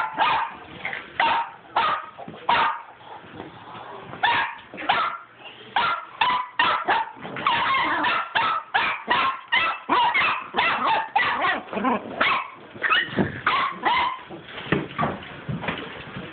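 Small dog barking excitedly during tennis-ball play, a rapid run of short, sharp barks, several a second. There is a brief lull about three seconds in.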